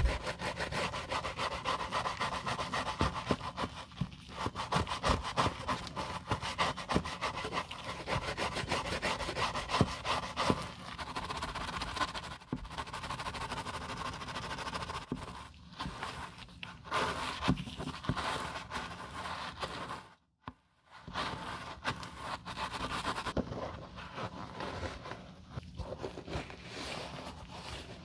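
Bristle brush scrubbing inside a leather loafer in quick back-and-forth strokes, brushing out mold from the lining. The strokes break off briefly about two-thirds of the way through, then start again.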